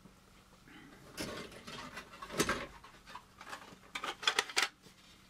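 Plastic model-kit parts being handled: a rustle starting about a second in, then sharp plastic clicks, with a quick run of clicks and clatter near four seconds.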